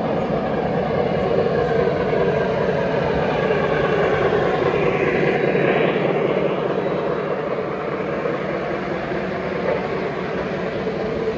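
Three-rail O-gauge model trains running, a steady rumble and whir of motors and wheels on the track that swells a little about halfway through.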